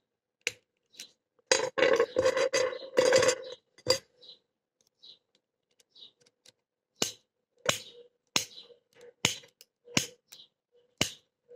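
Metal clinking and clicking of an old brass-bodied padlock and steel picking tools being handled: a burst of rattling early on, then a run of sharp clicks about two a second.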